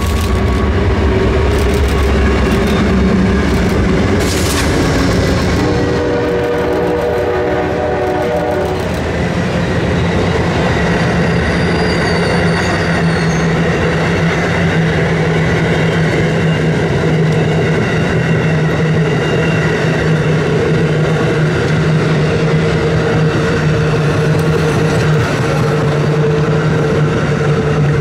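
Amtrak passenger train passing close at speed: the GE Genesis diesel locomotives rumble by, and the horn sounds one chord for about three seconds, starting about six seconds in. After that the long string of passenger cars rolls past with steady wheel-on-rail noise.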